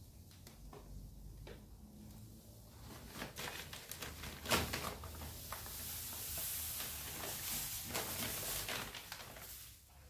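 Fine kiln-dried sand pouring from a plastic bag onto a concrete floor in a steady hiss, with the bag crinkling. The pour gets louder about three seconds in, with a sharp crinkle soon after, and tails off near the end.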